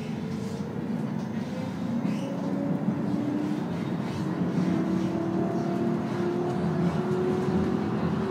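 Electric tram running and gathering speed: the traction motors whine with a slowly rising pitch over the steady rumble of the wheels on the rails.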